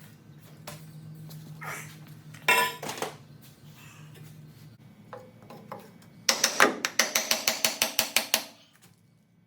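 Hand-tool work on metal: a sharp metallic clank about two and a half seconds in, a few lighter knocks, then a rapid run of about a dozen sharp, ringing metal strikes, some six a second, lasting about two seconds.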